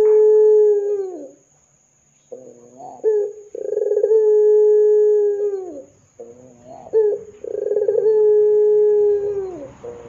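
Ringneck (Barbary) dove cooing: a few short stuttered notes, then a long drawn-out coo held on one low pitch that drops off at its end. One coo ends about a second in, and the pattern repeats twice, roughly every four seconds.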